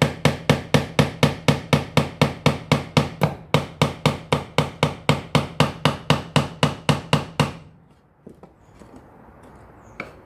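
Claw hammer striking nails into a soft-wood box side, a fast, even run of light blows about five a second that stops about three-quarters of the way through.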